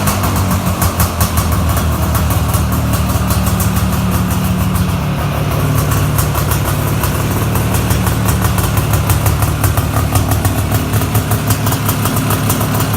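Polaris Scrambler 400 ATV's single-cylinder two-stroke engine running steadily at an even speed, without revving.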